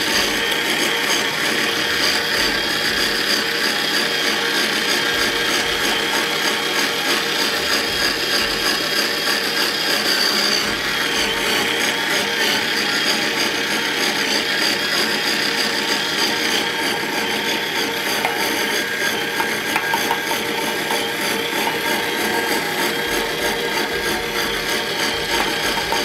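Kraft KF-MG2703MGL electric meat grinder running steadily under load, its motor and gears grinding meat into mince through the plate. It is a noisy machine.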